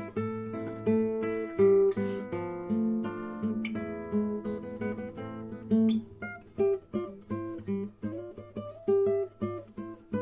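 Acoustic guitar playing a run of picked notes and strummed chords.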